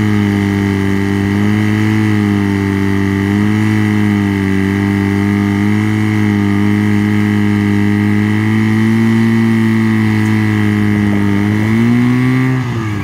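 Petrol engine of a portable fire pump running steadily at a constant speed, its pitch wavering slightly; it rises a little and then breaks off abruptly near the end.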